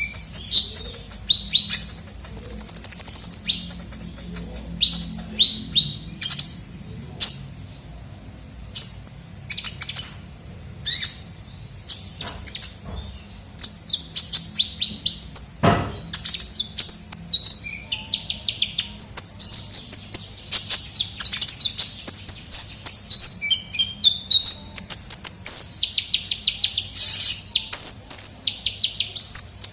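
Sunbird song, the 'kolibri ninja' used as a lure call: quick high chirps and fast twittering trills in close, repeated runs. A single knock sounds about halfway through.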